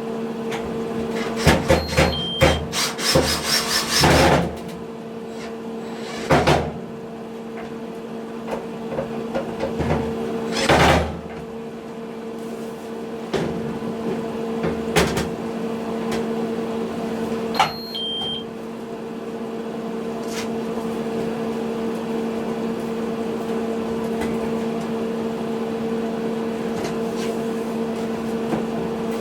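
Miele T1 heat-pump tumble dryer running with a steady hum. Several knocks and clatters sound in the first half, and two short two-note electronic beeps come about two seconds in and a little past halfway.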